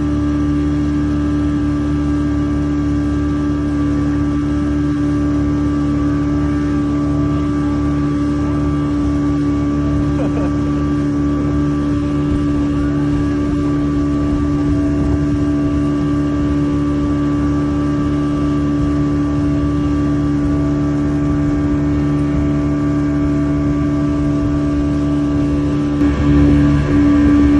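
A 40 hp outboard motor running at a steady high speed while towing a banana boat. Its drone holds an even pitch, then turns louder and uneven near the end.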